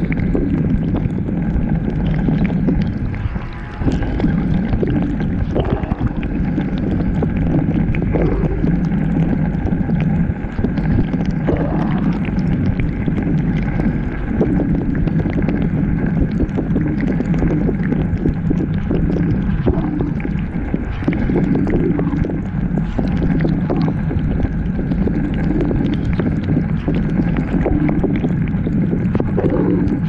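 Dishwasher running, heard from inside the wash tub: water spraying and sloshing steadily over the hum of the pump motor.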